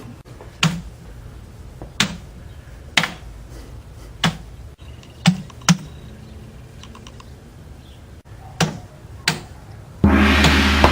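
Single heavy keystrokes on a computer keyboard, about eight separate clicks at uneven spacing of roughly a second. Near the end a loud sustained sound with a low hum starts.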